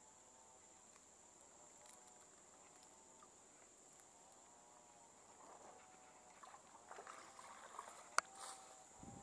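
Faint steady insect drone with a short animal call repeating lower down. From about five seconds in come the wet rustle and dripping of a cast net being hauled out of the water, with one sharp knock near the end.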